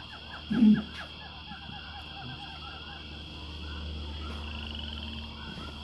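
Animal calls outdoors: a fast run of short chirps, several a second, over a steady high trill and a low hum. A brief, louder low sound comes about half a second in.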